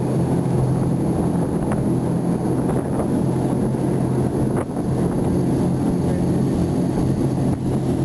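Whale-watching boat's engine running steadily under way, a constant low drone, with some wind on the microphone.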